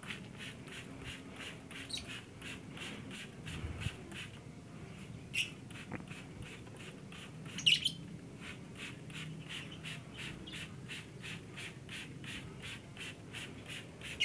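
Trigger spray bottle misting a lovebird cage in quick, even squirts, about three or four a second, with a brief pause about four seconds in. A lovebird gives a short squawk about five seconds in and a louder, rising one near eight seconds.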